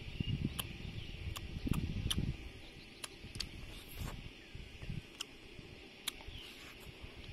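Someone eating with a fork from a metal tray: close chewing and mouth noise for the first two seconds, then a string of sharp, irregular clicks of the fork against the tray.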